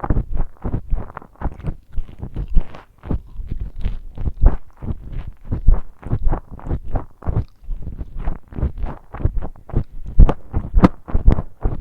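A person chewing chicken nuggets and fries with mouth open: quick, irregular chewing and smacking sounds, several a second.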